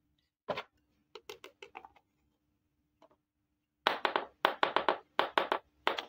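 Small hard-plastic toy kitchen pieces, a miniature ladle and knife, clicking and clacking as a hand sets them down. The taps come singly at first, then in quick dense clusters over the last two seconds, which are the loudest part.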